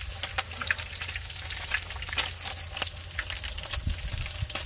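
Irregular crackling and popping of pork belly frying in its own fat in a pan, with snips of kitchen scissors cutting the fried pork belly.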